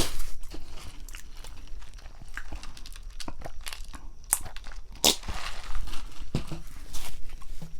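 Close-miked chewing and biting into a baked grinder sandwich: irregular crunches and crackles of toasted bread, with a few louder crunches near the middle.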